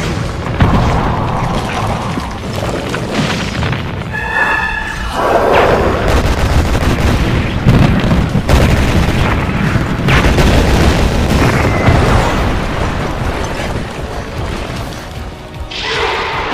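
Repeated heavy explosion booms from pyrotechnic blasts tearing through miniature city buildings, layered over loud dramatic background music.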